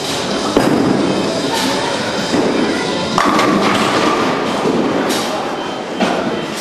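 A bowling ball lands on the lane with a thud about half a second in and rolls down it, then crashes into the pins about three seconds in, followed by the clatter of falling pins.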